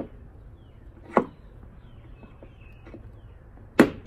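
Two hammer blows on a metal door hinge pin, one about a second in and another near the end, driving the pin out of the hinge; faint small clinks fall in between.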